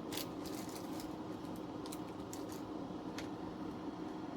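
Light clicks and taps of small parts and a soldered cable being handled and turned on a workbench, over a steady low hum.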